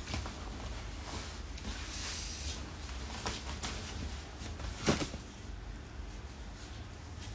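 Cloth rustling and flapping as black work clothes are handled and shaken out, with scattered small clicks and one sharper knock about five seconds in. A steady low hum runs underneath.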